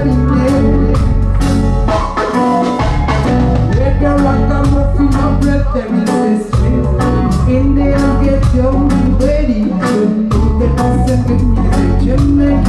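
Live reggae band: a woman singing lead into a microphone over drum kit and electric guitars, with a heavy bass low end and a steady drum beat.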